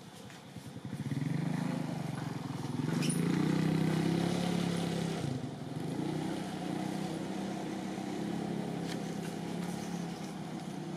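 Motor vehicle engine running nearby. It swells in about a second in, is loudest around four seconds in, then holds steady with a slightly wavering pitch.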